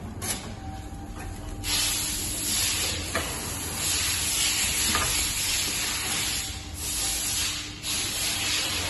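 A loud hiss begins about two seconds in, swelling and dipping, over a low steady machine hum with a few faint clicks.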